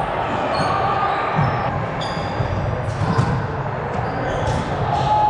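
Volleyballs being hit and bouncing on the court floor, several separate knocks over a steady background of voices, with a few short high squeaks.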